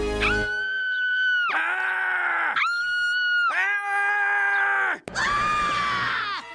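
Cartoon characters screaming: two voices take turns with long held screams about a second each, a higher one and a lower one. A sudden cut about five seconds in brings a rougher, noisier scream from another clip.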